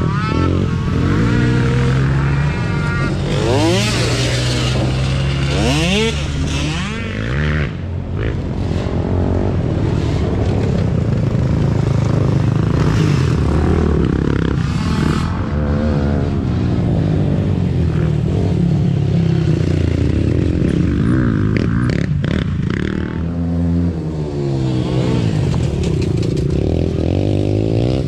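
Racing quad (ATV) engines revving hard as the quads pass on a dirt trail, one after another. The engine pitch climbs sharply several times as they accelerate, then drops back.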